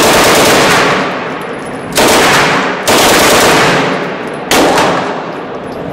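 Beretta M12 submachine gun firing 9mm on full automatic: four bursts, the first the longest, with the reports echoing in an indoor range lane.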